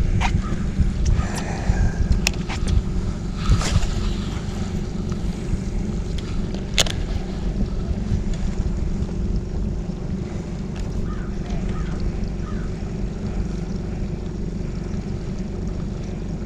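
A boat motor running steadily, with a few sharp clicks in the first seven seconds.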